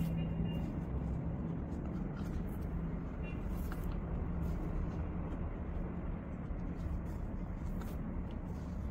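Steady low background hum, with a few faint soft rustles and ticks from cotton macrame cord being pulled and knotted by hand.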